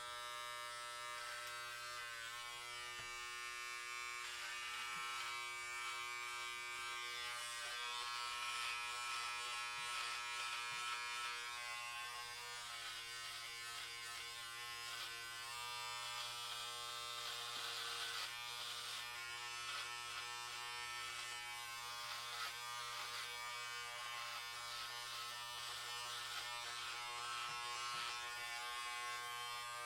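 Electric hair clippers running and cutting hair: a steady buzz, with a rasping hiss from the blades that swells and fades as they pass through the hair.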